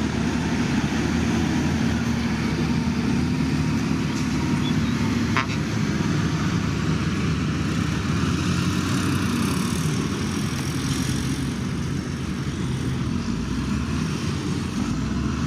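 Heavy earthmoving machine's diesel engine running steadily under work, a constant low drone with a brief click about five seconds in.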